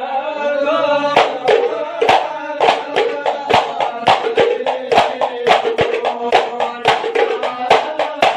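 Male voices singing a sholawat together to the beat of hadrah Ishari terbang frame drums. The drums pause briefly at the start, leaving the singing alone, then come back in about a second in with a steady, quick rhythm under the held notes.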